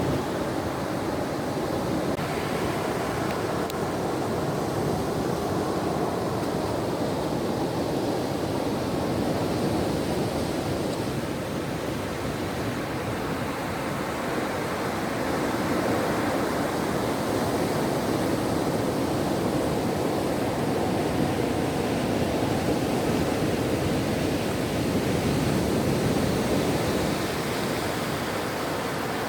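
Ocean surf washing on a shore: a continuous rush of wave noise that swells and eases slowly.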